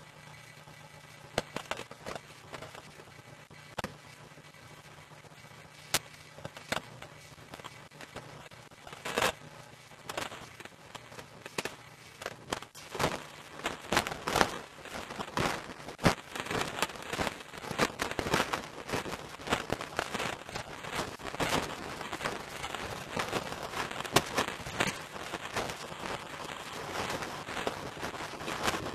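Dry brush, grass and twigs crackling and snapping underfoot as someone walks through undergrowth. The snaps are sparse at first and become a dense, continuous crackle from about nine seconds in. A faint steady low hum sits under the opening seconds.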